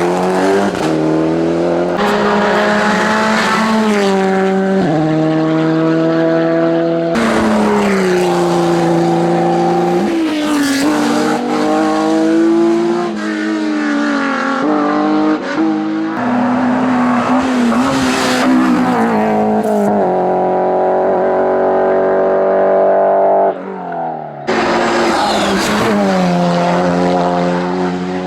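Hillclimb race car engines at full throttle, revving up and dropping in pitch at each gear change. The sound changes abruptly several times, moving on to a different car each time.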